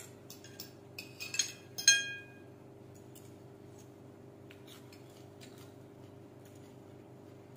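Metal spoon and fork clinking and scraping on a ceramic plate: a quick run of clinks in the first two seconds, the loudest one ringing briefly. A few faint light clicks follow over a steady low hum.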